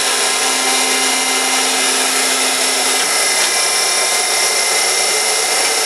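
Heald 271 Gage-Matic internal grinder running with its high-speed grinding spindle and hydraulics on: a steady, high-pitched whine over dense machine noise. A low hum drops out about three seconds in.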